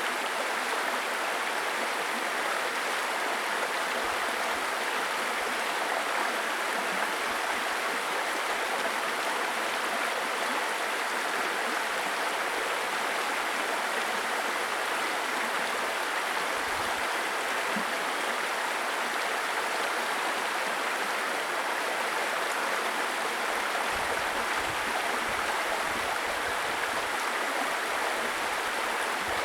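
Small stream babbling and gurgling over stones, a steady, even rush of running water.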